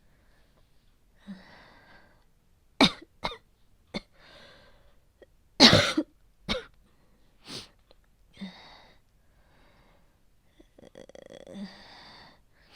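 A woman coughing: about six sharp coughs in a row, the loudest about halfway in, with breathy exhalations before, between and after them. The coughing is performed as a feverish cold.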